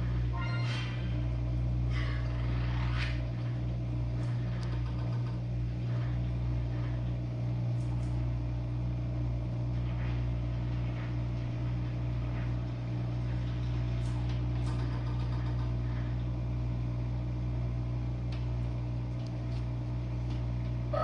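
Jenn Air dishwasher running mid-cycle: a steady, even hum from its motor and pump, with no change in level.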